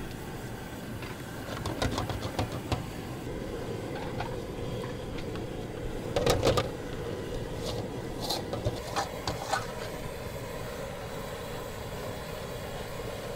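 Work at a candied sweet potato and taro food stall: a steady hum with scattered clinks and knocks of utensils. The loudest cluster of knocks comes about six seconds in.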